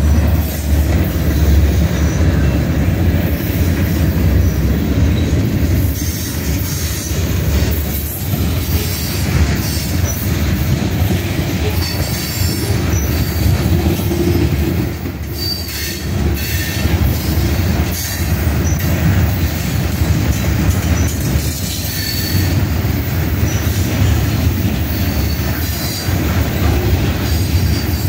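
Freight cars rolling past at close range: a steady heavy rumble of steel wheels on the rails, with repeated clicks as the wheels cross rail joints and occasional short high wheel squeals.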